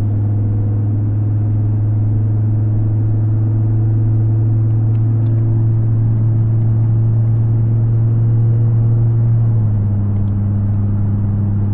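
Steady low exhaust drone heard inside the cab of a pickup truck pulling uphill at about 2,500 rpm, the exhaust fitted with a quarter-wave resonator to cut the drone. The hum drops slightly in pitch about ten seconds in as the revs ease.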